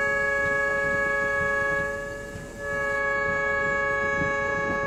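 Train horn sounding a long steady chord of several notes. It breaks off briefly a little after two seconds in, then sounds a second long blast.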